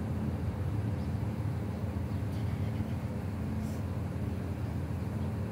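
Steady low motor hum, even in level, with no separate knocks or calls standing out.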